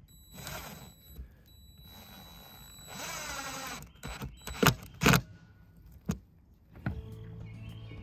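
Cordless impact driver driving a self-tapping screw through the plastic flange of a solar cable entry housing into the RV roof. It runs in short bursts with a high whine, the loudest burst about three seconds in. A few sharp knocks follow around five seconds in.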